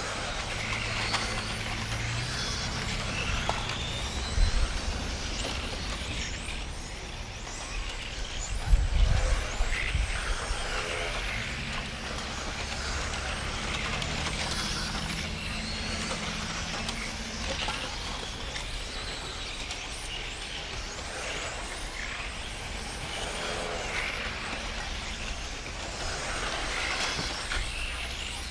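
Electric 1/10-scale XRAY T4 touring cars racing around an asphalt track, their motors whining and sweeping up and down in pitch as they accelerate and brake. A low rumble runs underneath, with louder low thumps about four and nine seconds in.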